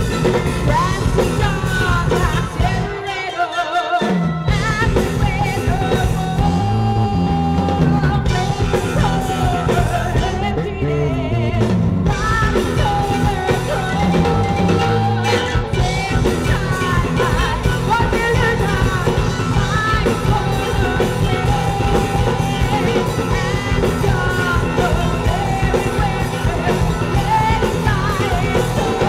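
Live rock band playing: a woman singing with long held notes over electric guitar and drums. The low end drops out briefly about three seconds in, then the full band comes back.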